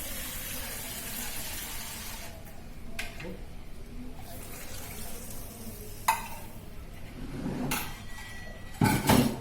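Liquid pouring for about two seconds, then a few separate clinks and knocks of cookware and utensils, the loudest near the end.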